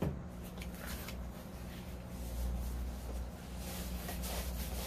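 Quiet rustling and rubbing of a thin polyethylene foam wrap as a hardcover photo book is slid out of it by hand.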